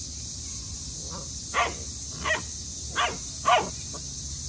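Eight-week-old Newfoundland puppy play-barking: about five short, high barks in quick succession starting about a second in, the last few the loudest.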